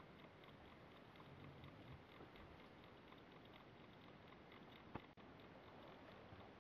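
Near silence: steady recording hiss and room tone, with one short click about five seconds in.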